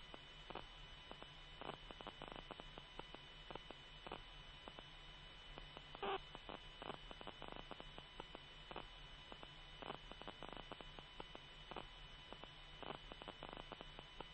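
Faint steady electrical hum with scattered light crackles of static, the background of the radio audio between transmissions.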